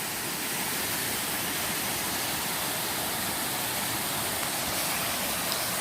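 Steady rush of falling water from a small waterfall.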